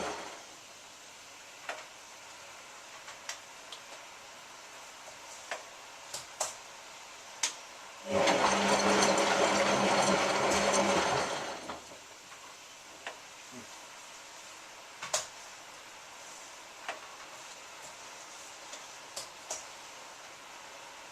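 Hotpoint 9534A washing machine on a hot wash. The drum sits still with scattered clicks and drips, then turns for about three and a half seconds from about eight seconds in, with the motor running and water sloshing, before stopping again.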